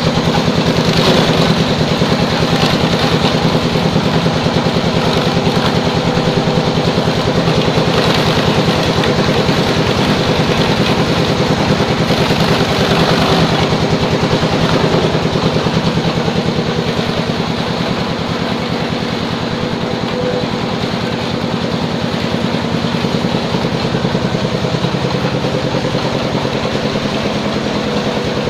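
A belt-driven bakso meatball grinding machine runs steadily. Its drive motor and pulleys give a continuous mechanical hum with a rapid, even beat.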